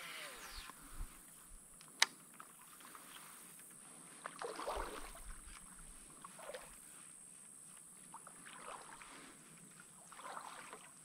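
Quiet kayak paddling through shallow, weedy water: soft paddle dips and water splashes every couple of seconds, with one sharp click about two seconds in.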